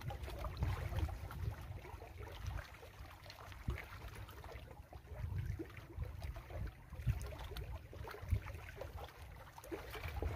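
Small lake waves lapping and splashing against shoreline rocks, with low gusty rumble of wind on the microphone and a few short sharp splashes or knocks.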